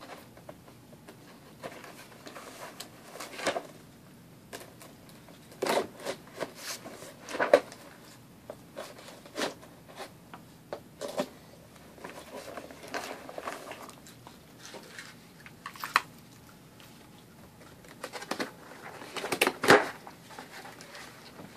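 Cardboard shoe box being handled and opened: scattered scrapes, crackles and tearing sounds, with louder bursts about seven seconds in and again near the end as the lid comes off.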